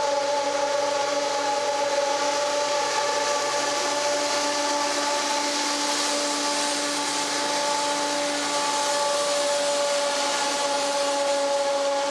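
Norfolk Southern SD60E locomotive with a failing turbocharger, giving off a steady, whistle-like whine over a hiss of rushing air: the sound of a bad turbo.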